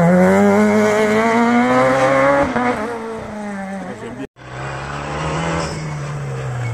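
Rally car engine accelerating hard out of a hairpin, its pitch rising steadily for about two and a half seconds, then fading as the car pulls away. About four seconds in the sound cuts off suddenly, and another rally car's engine follows, quieter and steadier, its note slowly dropping.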